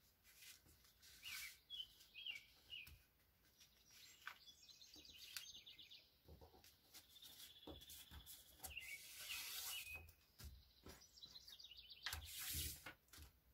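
Near silence with faint bird chirps coming and going, and soft rustling of a sheet of paper being folded and pressed flat by hand.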